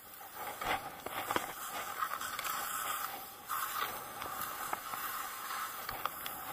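Skis sliding and scraping over snow, a continuous hiss broken by scattered clicks and knocks.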